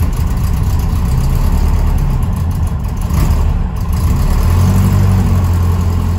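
A vehicle engine running with a loud, deep, steady rumble.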